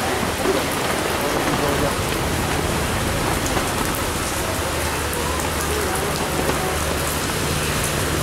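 Hurricane wind and driving rain: a steady, heavy hiss of wind-driven rain over a low rush of wind.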